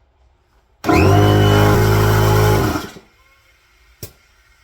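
Portable electric air compressor pumping up a soft car tyre: it starts abruptly and runs with a loud, steady hum for about two seconds, then is switched off and winds down. A single click follows about a second later.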